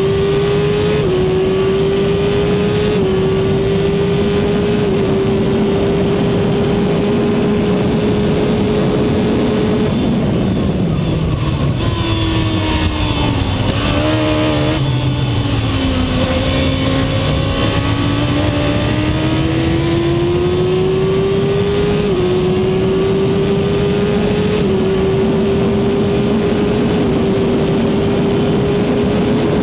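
Shortcar racing car's engine heard from the cockpit, running hard at high revs, with quick upshifts in the first few seconds. About a third of the way in the revs fall away through several downshifts for a corner, then the engine pulls back up through the gears with more upshifts near the end.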